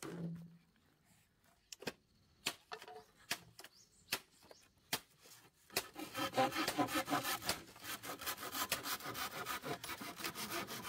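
Machete blade scraping and shaving a green bamboo pole: a rapid, continuous rasping that starts about halfway through, after a few scattered sharp taps.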